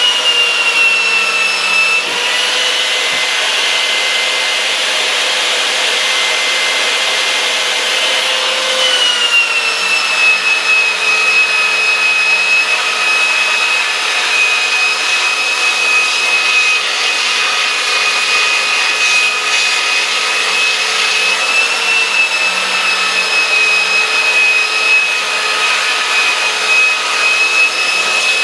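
Skil handheld belt sander running with a coarse 40 to 50 grit belt, sanding a pine board: a steady motor whine over the rasp of the belt on the wood. The whine dips briefly about two seconds in, then drops a little in pitch about nine seconds in and holds there.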